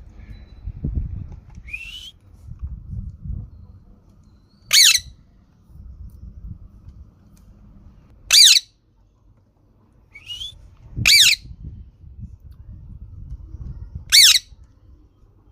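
A green parrot giving short, harsh squawks that fall in pitch: four loud ones about three seconds apart, with a couple of fainter, shorter calls between them. A low rumbling noise runs underneath.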